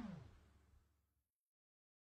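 Near silence: the background music ends with a falling pitch slide that dies away in the first moment, then nothing.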